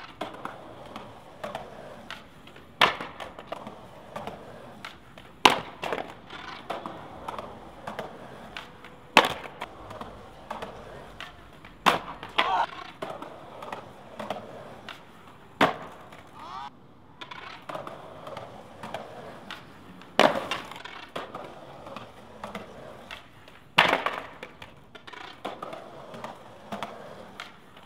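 Skateboard on stone steps: about seven sharp cracks a few seconds apart, from the tail popping and the board slapping down on the stone, with scuffing between.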